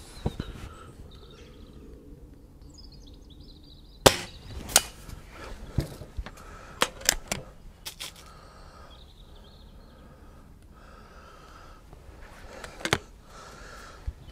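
A Diana 240 break-barrel spring-piston air rifle fires once with a sharp crack about four seconds in, the loudest sound. It is followed by a run of metallic clicks and knocks as the barrel is broken open to cock the spring and load a pellet, and another short cluster of clicks near the end as the barrel is snapped shut.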